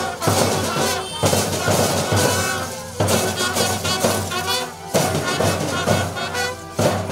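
Live light-music band playing: a wavering melody over heavy drum beats that land about every one to two seconds.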